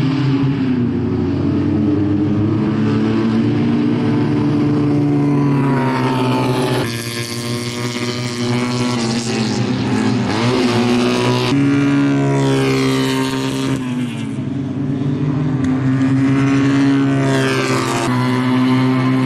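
Two-cylinder Fiat 500 race car engines revving hard as several cars lap the circuit together. Their pitch climbs and drops back at each upshift several times over, with more than one engine heard at once.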